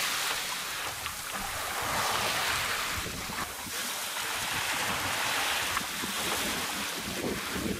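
Wind and sea wash aboard a wooden tall ship under sail, with wind buffeting the microphone; the rushing noise swells and eases every couple of seconds.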